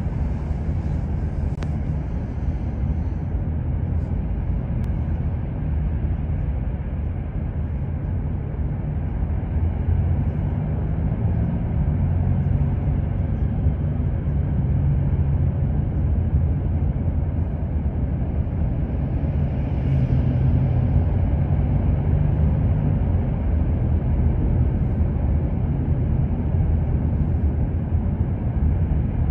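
Steady low rumble of road and tyre noise inside a moving car's cabin at expressway speed.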